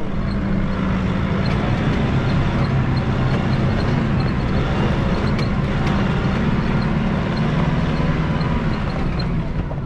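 Nissan GU Patrol turbo-diesel 4WD driving along a rocky gravel track, its engine running steadily under a continuous haze of tyre and road noise.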